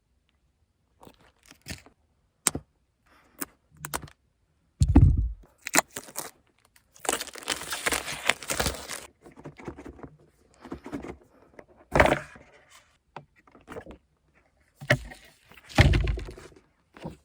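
Handling sounds from a keyboard being moved about: scattered clicks and knocks, and two heavy thunks, about five seconds in and near the end, as it is set down. About two seconds of rustling and scraping fall near the middle.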